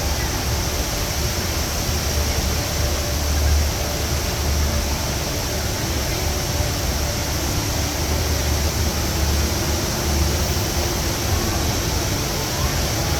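Steady rushing roar of the Rain Vortex, a large indoor waterfall, with a deep low rumble under it.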